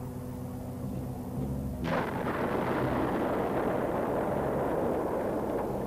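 A steady drone, then about two seconds in a sudden blast that rolls on in a long rumble as bombs explode on the ground below an attacking jet.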